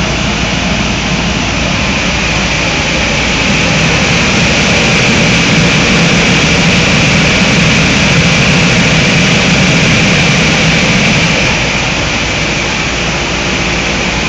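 Vitronics Soltec DeltaMax 6723 wave soldering machine running with a card going through it: a steady, loud rushing whir from its preheat blowers and conveyor, with a low hum underneath, swelling a little in the middle.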